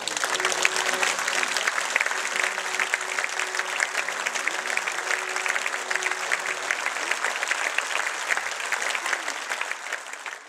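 Opera audience applauding at the close of the performance: dense, steady clapping that fades away near the end.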